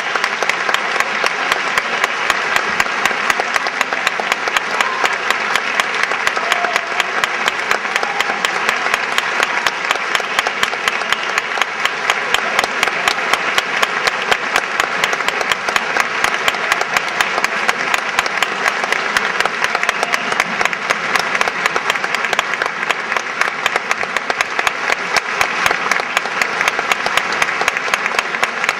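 Concert audience applauding, a dense, steady mass of clapping that keeps going without a break.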